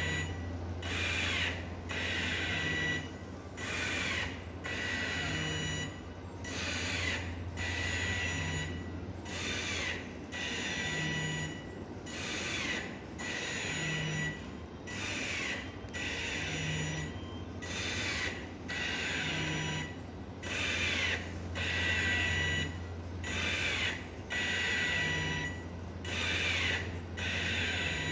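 DIY non-invasive ventilator cycling steadily: a low motor hum under a rhythmic rush of air with a thin whistle, about one breath cycle every 2.8 seconds. The airy part is air sounding through the open extension tube with no mask on a patient.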